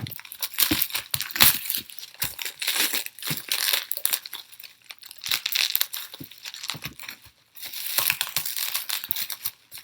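Plastic packaging crinkling and crackling in irregular bursts as it is handled and opened, with a short pause about two-thirds of the way through.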